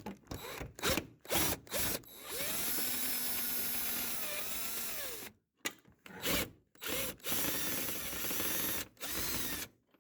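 A power drill/driver running in a series of short bursts and one longer run of about three seconds whose motor pitch shifts, spinning out the front bumper's bolts.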